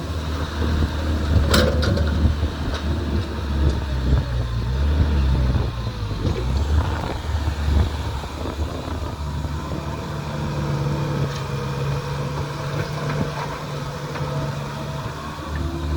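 Excavator's diesel engine running as it works, its pitch and load shifting, with a sharp metallic clank about a second and a half in.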